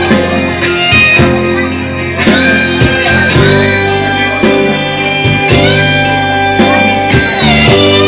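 Electric guitar playing a slow bluesy lead with long held notes bent up in pitch, over steady low bass notes.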